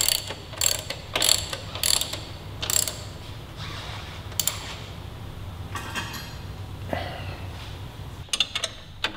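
Socket ratchet clicking in short runs as a shock-mount nut is run down and tightened: a stroke every half second or so at first, then sparser, with a quick run of clicks near the end.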